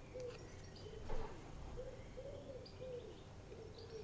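A pigeon cooing faintly in a run of short, soft, rounded notes, with small birds chirping higher up. There is one sharp tap about a second in.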